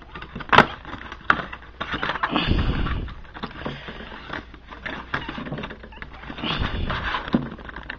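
A foil trading-card pack being torn open and handled: crinkling and rustling with sharp crackles, the sharpest about half a second in, and two bouts of denser rustling with dull bumps.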